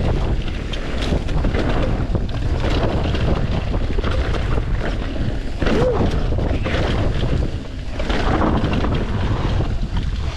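Wind buffeting the microphone of a mountain bike descending a dirt downhill trail, with the rumble of tyres and a constant clatter of small knocks and rattles from the bike.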